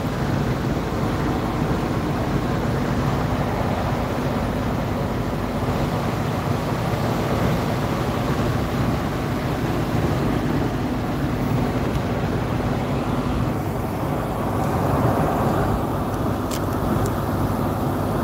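Steady drone of a semi truck's diesel engine and road noise heard inside the cab at highway speed, with a few faint clicks near the end.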